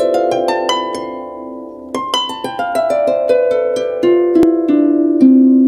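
Intro music of plucked, ringing notes: a rising run of notes, then from about two seconds in a second run that steps downward, with a short click near the middle.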